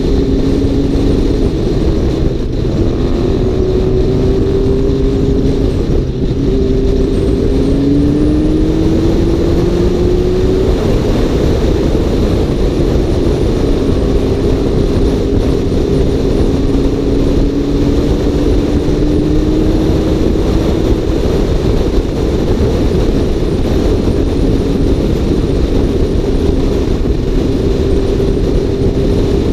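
Motor vehicle driving: a steady rush of road noise with an engine note that rises slowly as the vehicle gathers speed, then drops back, twice.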